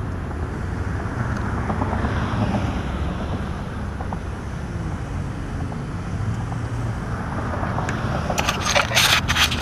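Yamaha FZ-07's parallel-twin engine running steadily, started up after a crash to check that it still works. Near the end come a cluster of knocks and rubbing as the helmet-mounted camera is picked up and handled.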